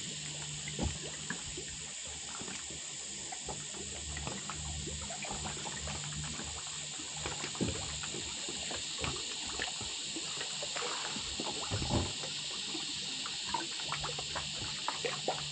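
Water trickling and splashing, with many small scattered clicks and knocks.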